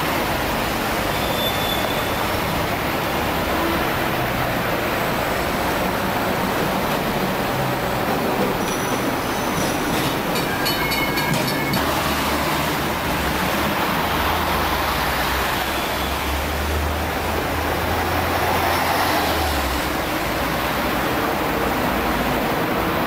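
Street traffic with Hong Kong double-decker trams running on their rails among buses. About ten seconds in comes a couple of seconds of high metallic ringing, and from about thirteen seconds a low engine drone holds for several seconds.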